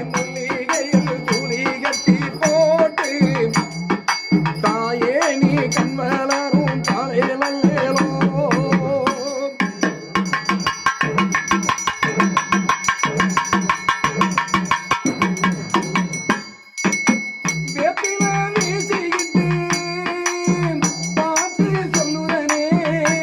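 Tamil devotional Amman song over a steady drum beat, with bell-like ringing tones throughout.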